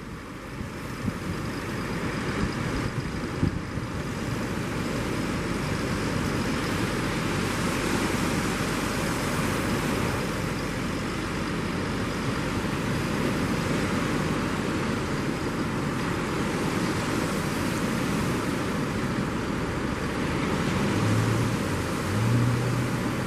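Steady rushing noise of surf and wind, with a low engine hum coming in near the end.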